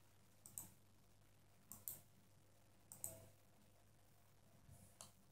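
Faint computer mouse clicks, mostly in quick pairs like double-clicks, about four times over a few seconds.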